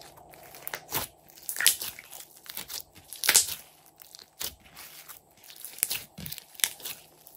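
Glossy slime being stretched, folded and squeezed by hand, giving irregular sticky crackles and pops, the loudest a little past three seconds in.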